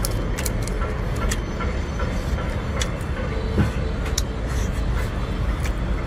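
Seafood being eaten: scattered short cracks and clicks of shell and chewing over a steady low rumble.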